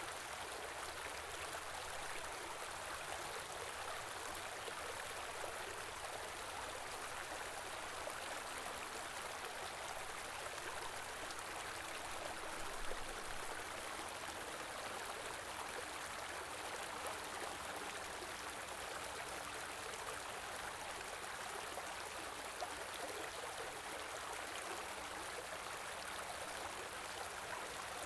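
Winter stream flowing steadily, an even rushing and babbling of water, with a brief soft low bump about halfway through.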